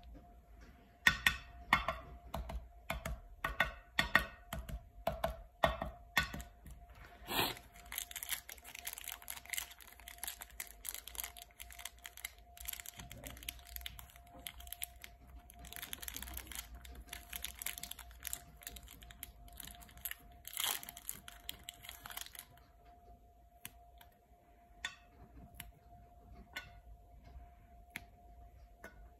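Plastic chocolate-bar wrapper being handled and torn open: sharp crackles at first, then dense crinkling for about a quarter of a minute, followed by a few light snaps as the wafer bar is broken apart. A faint steady tone runs underneath.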